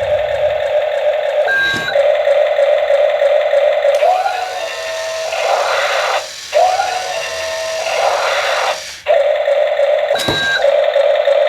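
Electronic sound effects from a toy RC forklift's small speaker: a steady, buzzy engine tone. For about five seconds in the middle it gives way to a different, noisier effect, and a short click with a brief beep comes near the start and again near the end.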